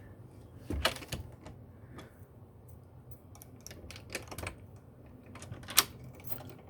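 Skeleton key worked in an old door mortise lock: a series of small metal clicks and clacks as the key turns and the bolt throws to lock, with the loudest clack about six seconds in.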